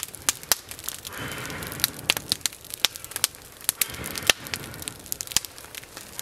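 Small wood campfire crackling, with sharp irregular pops several times a second.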